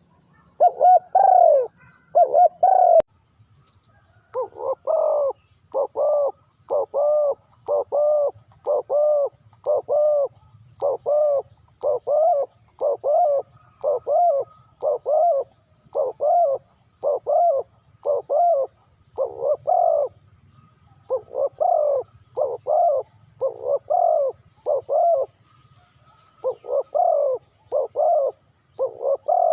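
Spotted dove cooing: a long run of short, deep coo notes repeated about twice a second in phrases with brief pauses. The loudest notes come in the first few seconds, and there is a break about three seconds in.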